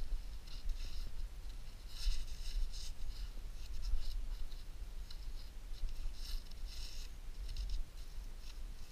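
Gloved hands scraping and scooping loose sandy soil and rubbing earth off a rusted relic: a string of short, irregular scratchy rustles over a low rumble.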